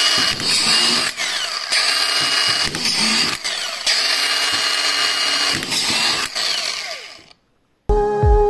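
Makita DFR550 18V cordless auto-feed screwdriver running, driving collated screws into OSB board: a steady motor whine broken by sharp clicks. It stops about seven seconds in.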